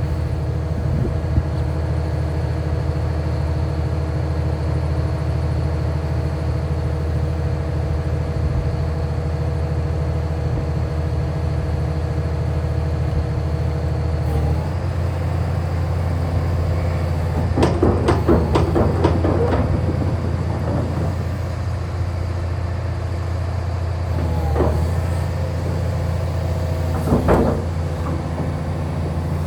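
Kobelco SK500LC-9 excavator's diesel engine running steadily while the machine works its hydraulics, the engine note shifting about 14 seconds in. Between about 17 and 20 seconds there is a loud burst of rapid clanking and rattling from the working machine, with shorter bursts near 25 and 27 seconds.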